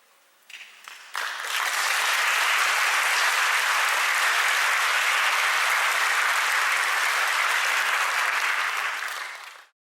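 Audience applauding, swelling within the first second or so and holding steady, then cut off abruptly near the end.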